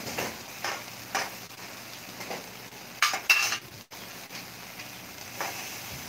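Chicken pieces sizzling softly on a wire grill rack over charcoal. A utensil clicks and scrapes against the metal rack several times, loudest in a clattering pair with a brief ring about three seconds in.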